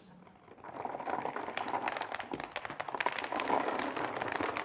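A trayful of plastic balls, small table-tennis balls and larger black balls, poured onto a net, clattering and bouncing in a rapid, dense patter that starts about a second in and keeps going.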